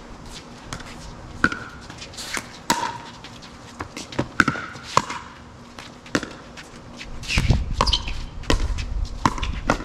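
A pickleball rally: about eight sharp pops of paddles striking the hollow plastic ball, each with a brief ringing tail, at uneven intervals. A low rumble comes in for the last few seconds.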